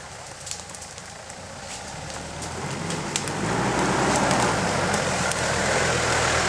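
Off-road SUV's engine running at low revs as it crawls down a steep slope. It grows louder over the first few seconds as it nears. Dry leaves and twigs crackle under its tyres throughout.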